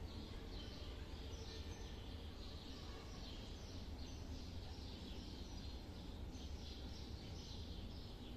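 Faint background ambience: a low steady rumble with high chirps repeating about once a second.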